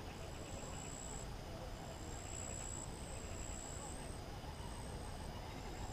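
Insects trilling with a high, steady pitch in stretches of about a second, several overlapping, with short breaks between them, over a low steady rumble.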